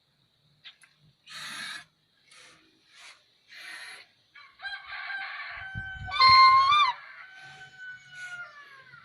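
White swan calling: several short raspy, hissing calls, then a run of honking calls about halfway through, the loudest a couple of seconds later, trailing off into drawn-out calls that fall in pitch near the end.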